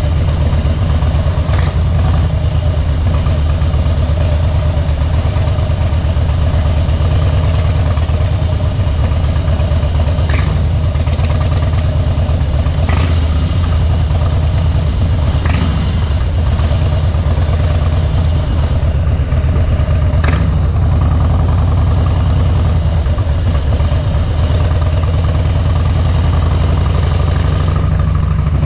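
Harley-Davidson Softail Deluxe V-twin engine running steadily through Vance & Hines slip-on mufflers, holding an even engine speed without revving, with a few short clicks along the way.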